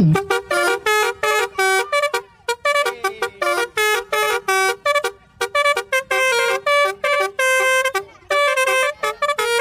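Telolet bus horn playing a quick tune of short, bright notes, about four a second, changing pitch from note to note.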